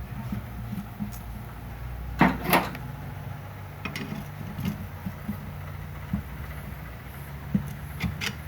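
Metal clanks and knocks as a steel rotor holder is fitted onto a Honda XRE 300 flywheel rotor and set against a bench vise: two sharp knocks about two seconds in, lighter taps after, and two more knocks near the end, over a steady low hum.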